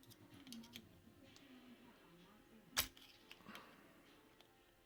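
A flathead screwdriver working small metal parts of a Tokarev Type 54 pistol's trigger mechanism: faint scattered metal clicks and scrapes, with one sharp click about three seconds in, while a stuck part is pushed on.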